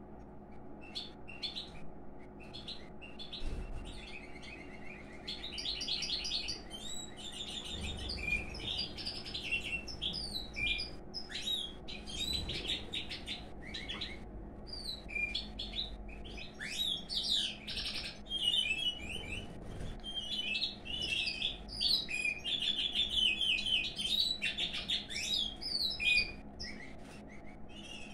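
Pine grosbeaks chirping and warbling as the male courts the female: scattered short chirps at first, thickening after a few seconds into a nearly continuous run of quick trills and whistles.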